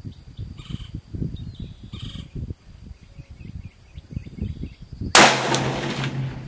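A single shot from a bolt-action Remington 700 rifle in .308 Winchester firing 175-grain match ammunition, about five seconds in: a sharp loud crack with a tail of about a second and a half. Before it, wind buffets the microphone and a bird chirps a few times.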